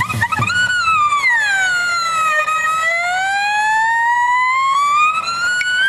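A long wailing, siren-like tone that slides slowly down in pitch and then slowly climbs back up, after a few quick rising chirps at the very start.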